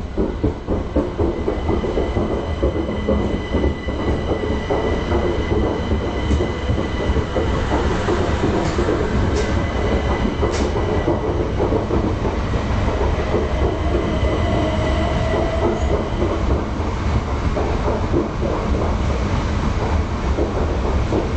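Southeastern Class 375 Electrostar electric multiple unit running past along the platform at speed: a steady rumble of wheels on rail, with quick clicks over the rail joints in the first couple of seconds and a thin, steady high whine through the middle.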